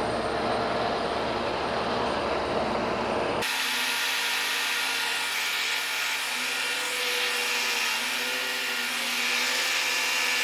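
American Pacemaker engine lathe running while a boring bar takes a light finishing cut inside a heavy-wall steel tube. The sound is steady, with a sudden change about three and a half seconds in: the low rumble drops away and a hissier cutting noise with faint steady tones takes over.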